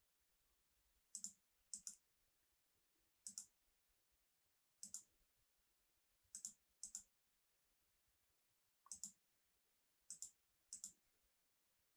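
Computer mouse button clicking about nine times at irregular intervals, each click a quick double tick of press and release, with near silence in between.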